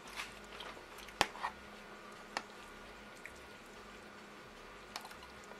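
Metal fork clicking and scraping against a plastic plate while scooping up food: a handful of short sharp clicks, the loudest about a second in, over a faint steady hum.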